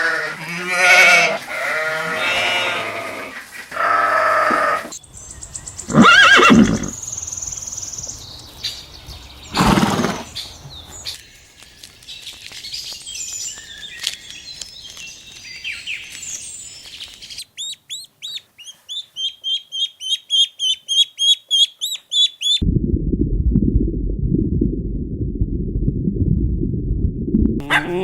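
Farm animals calling, clip after clip: several pitched calls in the first few seconds, two loud single calls about six and ten seconds in, and a fast run of high chirps, about four a second. Near the end comes about five seconds of low, dull noise.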